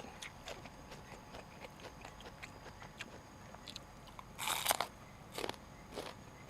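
A person chewing food close to the microphone: scattered small wet clicks, then a few short crunches, the loudest about four and a half seconds in.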